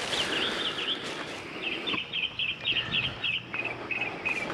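Songbird chirping outdoors: quick runs of short, high chirps repeated several times a second, over faint rustling of items being handled.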